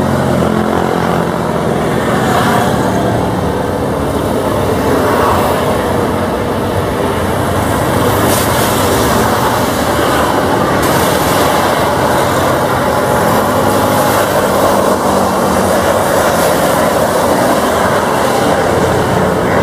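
Airbus A350 airliner's Rolls-Royce Trent XWB jet engines running as it rolls along the runway: a loud, steady noise that holds evenly throughout.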